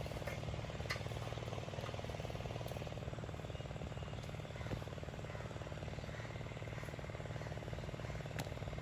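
Two-stroke chainsaw engine running steadily at low speed without revving, with a couple of sharp clicks.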